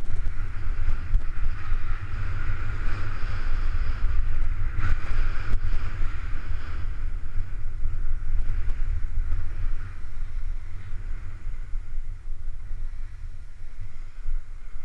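Wind buffeting the camera microphone as a skier runs down a groomed slope, with a steady hiss of skis sliding on packed snow. Both ease off about ten seconds in.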